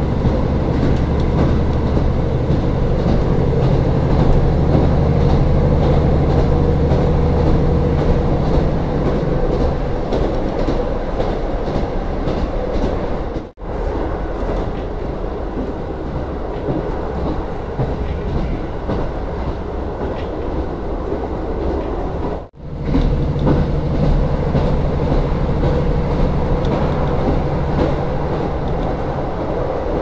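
Onboard running sound of a KiHa 40 diesel railcar: the diesel engine's steady low drone over the rumble of the wheels on the rails. About ten seconds in the engine drone falls away, leaving the rolling noise, and it comes back about two-thirds of the way through. The sound cuts out for a moment twice.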